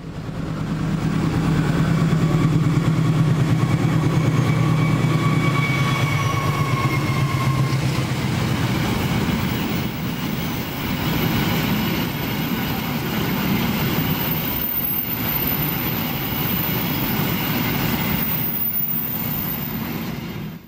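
A GE CM20EMP (CC206) diesel-electric locomotive passes close by with a loud, steady engine drone and a faint whine that falls slightly in pitch. After about eight seconds, empty flat cars roll past with a steady rumble and rail noise.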